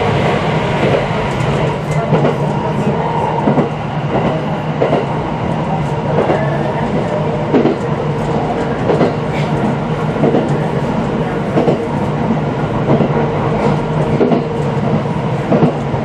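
A JR East 701 series electric train running on the rails, heard from inside: a steady rumble with a constant hum and irregular clicks as the wheels pass over rail joints.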